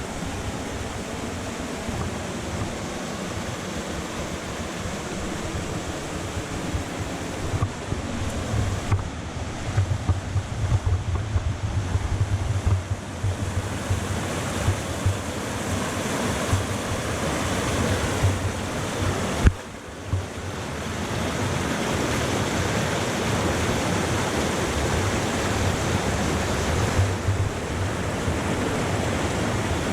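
Steady rush of a waterfall, with wind buffeting the microphone in gusts for a few seconds. A single sharp knock a little past the middle, after which the rush dips for a moment and comes back slightly louder.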